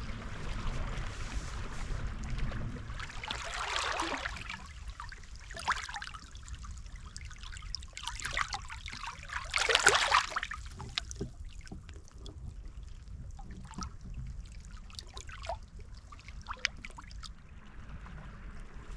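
Estuary water trickling and lapping at the water's edge, swelling into two louder washes about four and ten seconds in, with low wind rumble on the microphone at the start.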